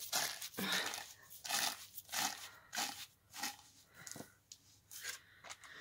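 Clear, stretchy plastic wrap crinkling and rustling in uneven strokes as it is pulled and unwound off a poster tube.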